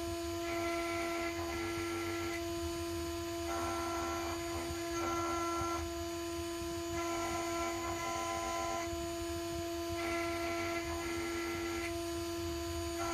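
CNC milling machine running as a small end mill cuts slots into a round metal shaft: a steady motor whine with higher tones that change every second or so as the machine moves.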